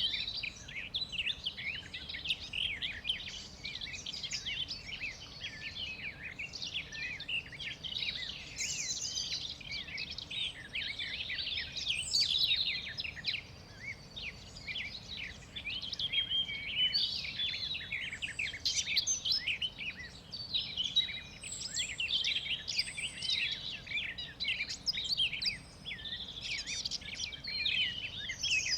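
Several small songbirds chirping and trilling together in a continuous, overlapping chorus of quick high notes and short glides, over a low steady background hiss.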